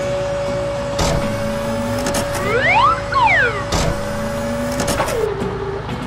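Cartoon wheel loader sound effects as its raised bucket tips a load into a dump truck: a steady motor hum, a whine that rises and then falls near the middle, and a few knocks. About five seconds in, the hum drops in pitch.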